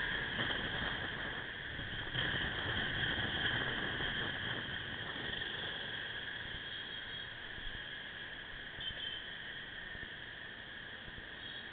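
Steady riding noise of a Suzuki Axelo motorcycle heard through a small helmet or dash camera's microphone: a high-pitched drone over a hiss, growing quieter in the second half as the bike slows.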